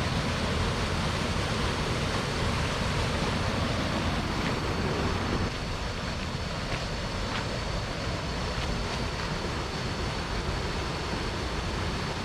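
Waterfall's rushing water, a steady hiss that drops slightly about five and a half seconds in.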